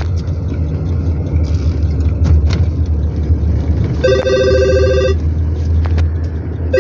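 A car horn with two notes at once sounds for about a second, about four seconds in, and again near the end. Under it is the steady low road and engine rumble heard inside a moving car.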